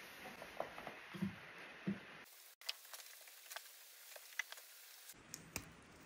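Faint, irregular snips and clicks of hand pruning shears cutting tomatoes from the vine, with light rustling of the plants and two dull knocks in the first two seconds.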